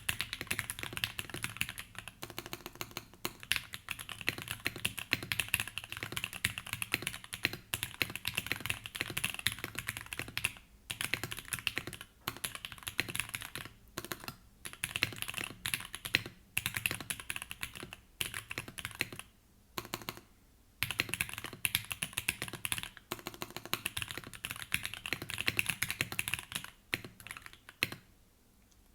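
Typing on a Tofu60 mechanical keyboard, O-ring mounted with foam inside, with Krytox 205g0-lubed, filmed Gateron Milky Yellow linear switches on an FR4 plate: fast runs of key clacks broken by brief pauses, stopping shortly before the end.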